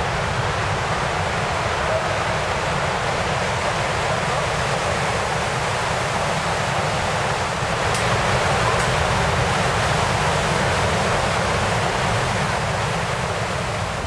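Box Canyon Falls rushing in its narrow rock gorge: a steady, dense roar of falling water that grows a little louder about halfway through.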